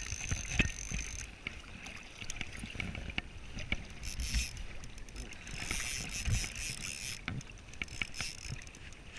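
Wind buffeting the microphone over a flowing salmon river, with a fly reel's drag buzzing in short spells about four seconds in and again around six seconds as a hooked salmon takes line.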